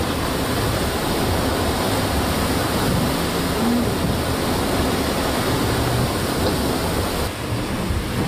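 Steady rushing noise of wind and sea aboard an IMOCA 60 racing yacht under way in open ocean: wind over the microphone mixed with water rushing past the hull. The noise shifts slightly in tone near the end.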